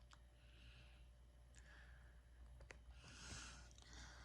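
Near silence: room tone with a few faint clicks and soft breathy puffs.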